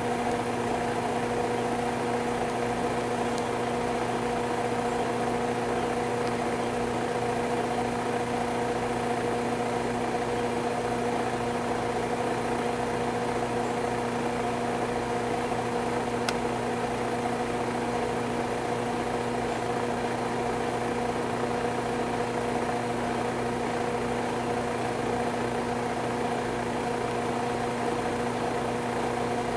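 Steady mechanical hum of a running motor, even in pitch and level.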